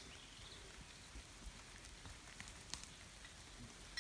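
Faint, steady outdoor hiss with a few light ticks scattered through it.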